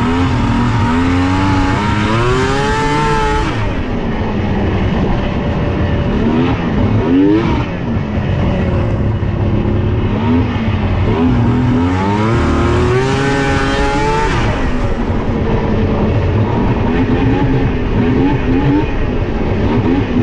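2001 Yamaha SX700R snowmobile's three-cylinder two-stroke engine revving hard and falling back again and again under throttle. It climbs in pitch about two, seven and twelve seconds in, then runs lower and steadier near the end.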